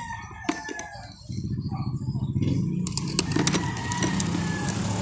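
A few sharp clicks and taps in the first second. Then, about a second in, a motor vehicle engine starts to be heard as a steady low rumble that keeps going.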